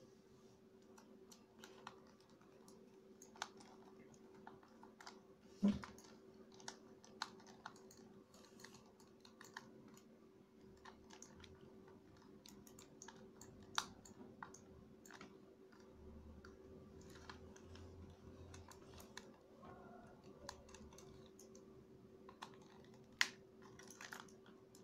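Small scattered clicks and ticks of a small screwdriver turning screws into the plastic base of an A4Tech mouse while the casing is handled, with a few louder clicks among them. A faint steady hum runs underneath.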